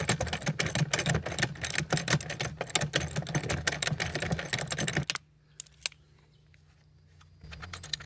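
Ratcheting wrench clicking rapidly as it turns the axle nut on a garden cart wheel. The clicking stops about five seconds in, leaving only a couple of faint clicks.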